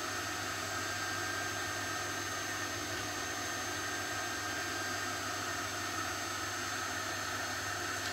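Steady hiss with a low, even hum, unchanging throughout.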